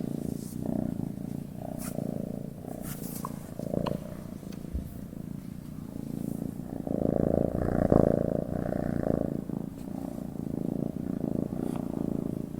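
Domestic cat purring, a continuous low rapid rumble that swells and eases in cycles of a second or two. It is loudest about eight seconds in.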